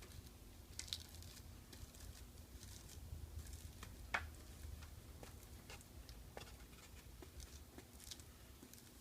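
Faint, scattered small clicks and ticks of hands working laminate film over a foam model-plane nose, with one sharper click about four seconds in.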